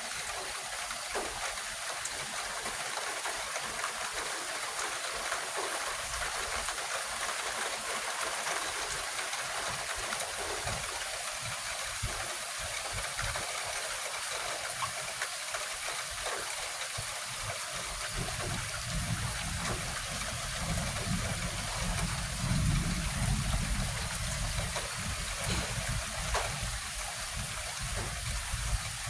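Steady hiss of light rain with faint scattered drop ticks. About two-thirds of the way through a low rumble rises under it, peaks, and fades before the end.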